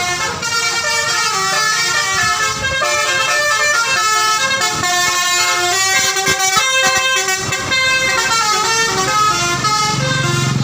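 A bus's musical 'telolet' horn (a basuri multi-tone horn) playing a tune: loud horn notes stepping quickly from pitch to pitch without a break.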